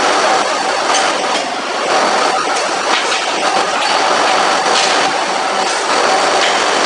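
Steady, loud machine noise of a forging hammer shop, with a few faint knocks about a second or two apart.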